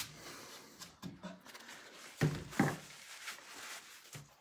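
Strokes of a 150-grit sanding block on a wooden drawer front stop right at the start. After that, the room is quiet apart from a few faint, brief sounds, the clearest two a little after two seconds in.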